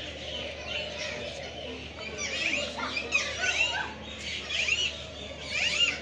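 Many small birds chirping and chattering together, a steady stream of short rising-and-falling calls.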